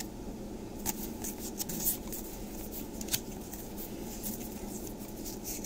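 Trading cards handled and flicked through a stack by hand: soft rustling with a few short, sharp card snaps about one, two and three seconds in, over a steady low room hum.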